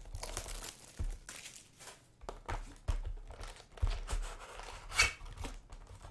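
Trading-card packaging being opened by hand: foil pack wrappers and box wrap crinkling and tearing, with irregular sharp rustles and snaps, the sharpest about five seconds in.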